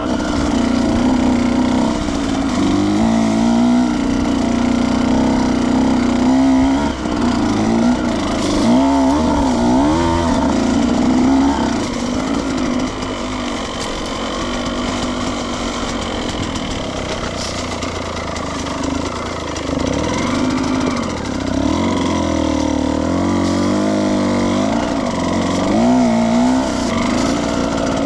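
Husqvarna two-stroke dirt bike engine running while being ridden, its pitch rising and falling again and again as the throttle is opened and closed.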